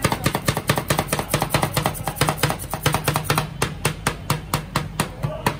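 Two metal spatulas rapidly chopping ice cream base with chocolate wafer pieces on a steel cold plate, a fast clatter of metal strikes, about seven or eight a second, as the mix-ins are chopped into the base for rolled ice cream.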